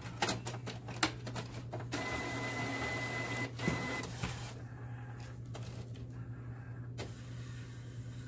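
Epson WorkForce WF-7720 inkjet printer's mechanism working: a few clicks, then a motor runs with a steady whine for about two and a half seconds, then scattered clicks, as the print-head carriage moves out to the ink-cartridge position.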